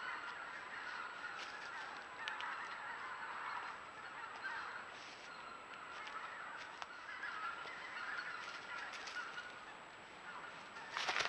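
A large flock of geese honking, many calls overlapping into a steady chatter throughout.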